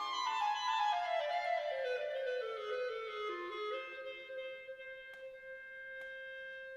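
Instrumental music: a single melodic line runs down a stepwise descending scale, then holds one long note.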